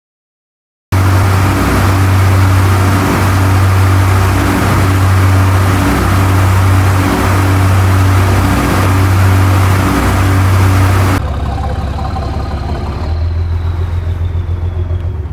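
A boat's engine running hard underway, a loud steady low hum mixed with the rushing of water and wind. About eleven seconds in it drops to a quieter, lower engine hum.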